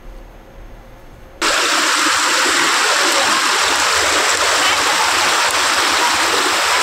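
Fast-flowing floodwater from an overflowing river, rushing loudly and steadily over a path. It cuts in abruptly about a second and a half in, after a faint low hum.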